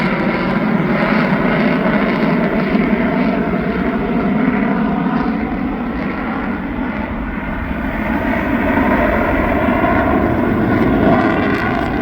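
Boeing F/A-18F Super Hornet's twin General Electric F414 afterburning turbofans running loud and continuous in flight. The roar eases slightly about halfway through and builds again toward the end.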